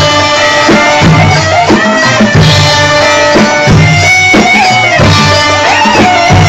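Instrumental Middle Eastern band music: an electronic keyboard plays a melody with sliding notes over a steady drum rhythm.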